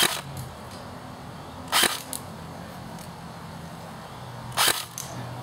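Airsoft electric gun (AEG) firing single shots through a chronograph: three sharp clacks, the second about two seconds after the first and the third about three seconds later.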